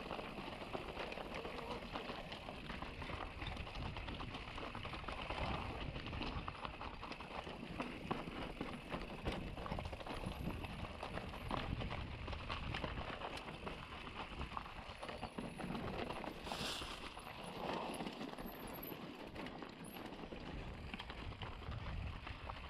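Mountain bike riding down a rough, rocky trail: a constant clatter of tyres over stones and the bike's chain and frame knocking, with a low rumble and a short hiss about two-thirds of the way through.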